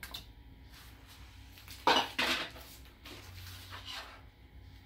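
Ceramic bowl clattering twice against a hard surface, two sharp knocks about a third of a second apart, about two seconds in, as it is emptied of eggs into a blender jar and put aside.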